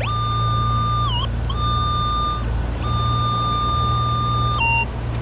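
Minelab Vanquish metal detector sounding a steady high target tone three times, the first with a brief wobble in pitch, then a short lower beep: the coil is passed over a target that is still in the hole.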